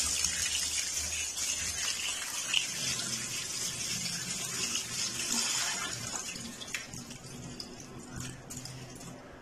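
Cold tap water running and splashing onto boiled macaroni in a steel strainer in a sink, rinsing the starch off the pasta. The water noise tails off about six seconds in.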